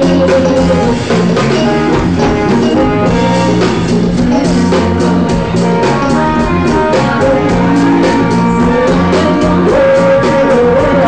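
Live band playing loud rock-style music, with a drum kit keeping a steady beat under guitar and singing.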